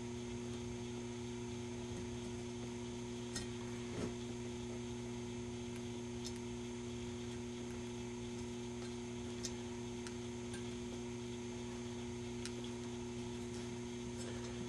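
Steady low electrical mains hum, with a few faint scattered clicks and taps from hands forcing a softened rubber power cord onto a slotted metal panel.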